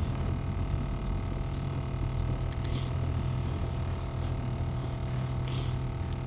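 Steady low hum of an engine or motor running, unchanging throughout, with a couple of faint soft hisses.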